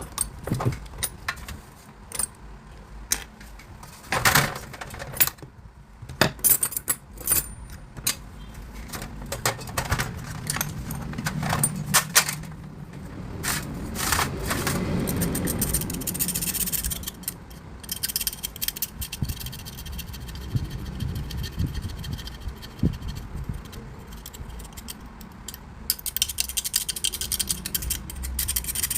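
Metal tools and parts clinking, tapping and scraping at irregular intervals during hands-on repair work, with a stretch of steadier rustling or hissing noise about halfway through.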